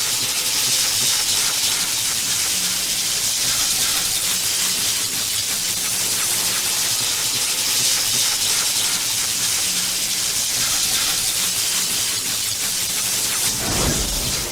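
Electricity sound effect: a steady crackling hiss over a faint low buzz, with a deep whoosh swelling up near the end.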